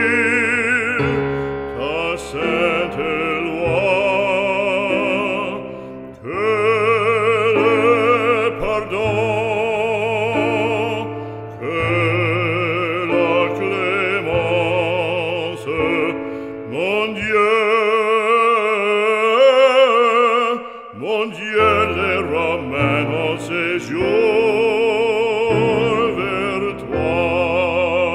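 Operatic solo singing with a wide vibrato over instrumental accompaniment with steady low held notes.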